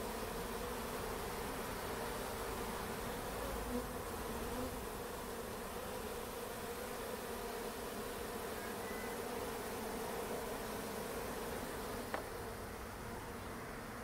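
Honeybees droning steadily, a cluster of them fanning their wings to spread scent that tells the rest of the swarm this is their new home. A single brief click near the end.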